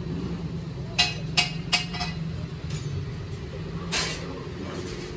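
Pieces of scrap iron clinking against each other as they are handled: three sharp, short metallic clinks about a second in, and a softer one near four seconds, over a steady low hum.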